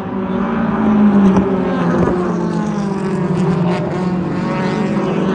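Race car engine running with a steady note that swells and rises slightly about a second in, then settles back.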